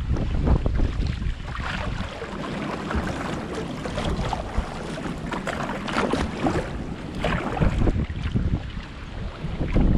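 Creek water splashing and lapping against a kayak's hull as it moves down rippled current, in many small irregular splashes, with wind rumbling on the microphone.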